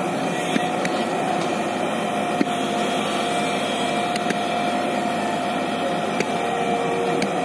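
JCB tracked excavator's diesel engine running steadily under work, with a steady whine through it and a few faint clicks as the arm and bucket move.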